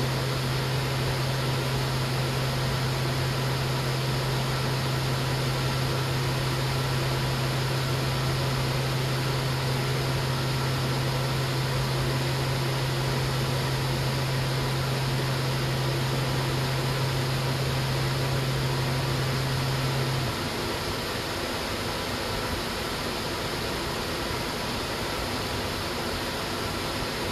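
Steady hiss with a low, even hum that cuts off suddenly about twenty seconds in; the hiss carries on after it.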